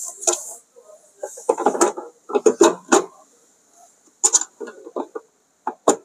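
Hollow plastic knocks and clatter as a refrigerator's removable plastic ice bin and compartment are handled and fitted into the freezer side, in two clusters with two sharp knocks near the end.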